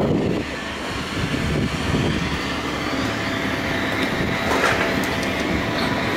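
Airport apron noise beside a parked Boeing 737-800: a steady mechanical rumble with thin, high, steady whining tones running through it.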